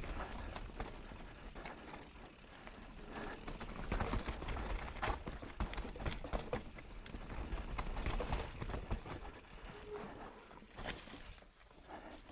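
Mountain bike descending a rocky, rooty dirt trail: tyres rolling over dirt and stones, with repeated knocks and rattles from the bike over the bumps, easing off briefly near the end.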